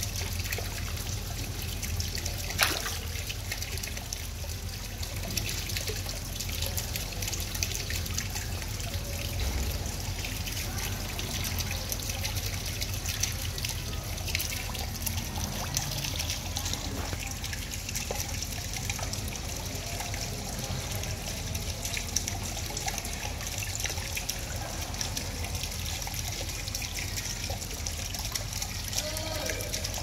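Steady trickling and splashing of water in a koi pond, from falling water and koi churning at the surface. A single sharp click about two and a half seconds in.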